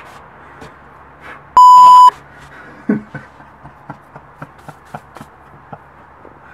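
A loud half-second 1 kHz censor bleep about a second and a half in, a single steady tone. Around it, faint scattered ticks and a soft knock as a hand sweeps sawdust off a plywood board.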